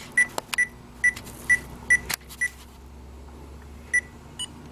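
Power Probe short finder receiver beeping rapidly, about two and a half short high beeps a second, as it picks up the signal the transmitter sends through the wire: the beeping means the signal is getting through and the circuit is not open or shorted there. The beeping breaks off for over a second after the middle, then resumes, with a few sharp handling clicks.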